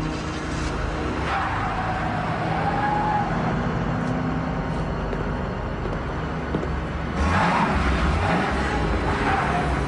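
A car speeds past close by, its engine accelerating, suddenly louder about seven seconds in.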